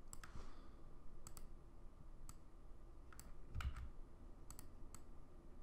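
Computer mouse and keyboard clicks while editing: about ten sharp, separate clicks at irregular spacing, some in quick pairs. One click about three and a half seconds in comes with a soft low thump.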